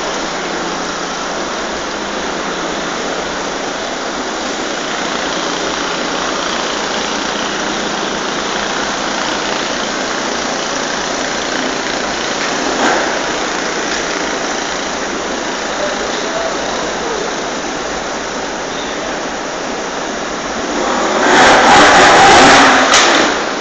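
Trial motorcycle engines running, a steady noisy din; near the end a louder burst of engine revving as a trial motorcycle climbs the rocks.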